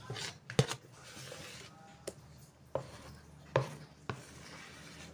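Spatula scraping thick banana cake batter out of a mixing bowl into a square metal baking tin, with several sharp knocks of the spatula against the bowl.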